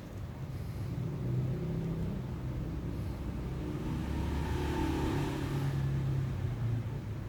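A motor vehicle's engine humming, swelling over a few seconds and easing off near the end.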